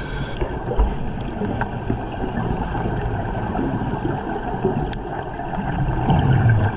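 Steady rushing underwater noise of water and air around a diver, with a louder low rumble about six seconds in.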